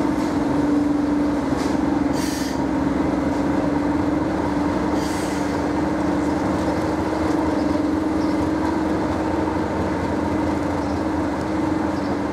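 Class 37 diesel-electric locomotive's English Electric V12 engine running under power as it pulls away, a loud steady drone holding one pitch. A couple of brief high hisses come about two and five seconds in.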